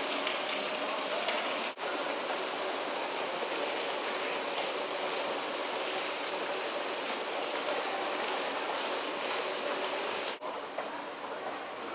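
Hundreds of plastic ball-pit balls clattering and bouncing down escalator steps, a dense continuous clatter. It breaks off for an instant about two seconds in and again near the end, and is a little quieter after that.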